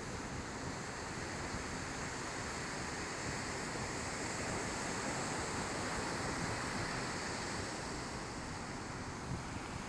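Ocean surf breaking and washing onto a sandy beach, a steady rushing noise mixed with wind buffeting the microphone.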